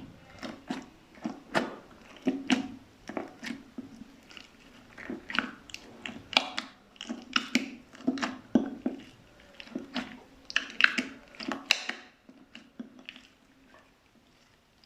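Slime being pressed and kneaded by hand, giving a run of sticky squelching clicks and pops about one to two a second, which die away near the end.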